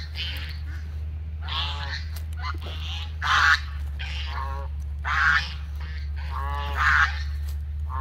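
Domestic geese honking over and over, calls following one another with three louder honks spread through. The flock is begging to be fed.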